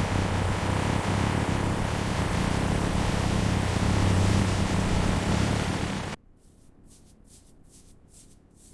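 A car engine running steadily with a low hum, which cuts off abruptly about six seconds in. After that comes a much quieter series of short, even hissing strokes, about three a second.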